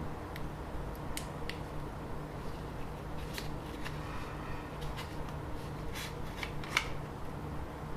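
Light, irregular clicks and taps of a caliper being handled and set against a small handheld computer while it is measured, over a steady low hum.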